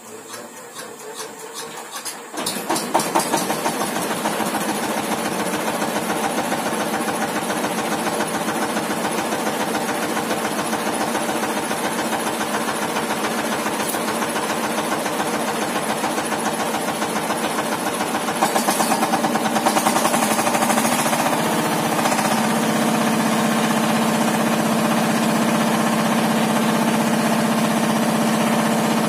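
Yanmar TS230 single-cylinder diesel engine starting: a run of quickening chuffs as it turns over, then it catches about two and a half seconds in and runs steadily. From about twenty-two seconds in its note settles into a steadier, fuller hum.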